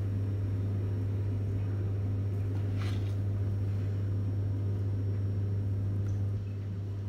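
A steady low mechanical hum that drops a little about six seconds in, with one faint tap about three seconds in.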